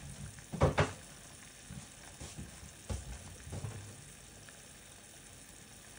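Pot of carrots and other vegetables boiling under its lid on a gas stove: a steady bubbling hiss, broken by a few sharp pops or knocks. The loudest is a quick double one just under a second in.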